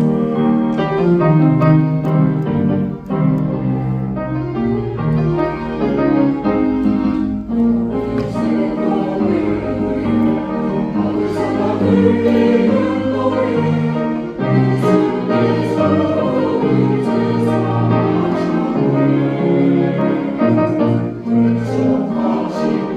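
Church choir singing a hymn in several parts with piano accompaniment.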